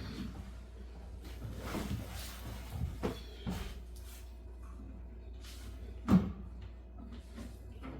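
Laundry being handled between washing machine and dryer: rustling and scattered light knocks, with one sharp thump about six seconds in.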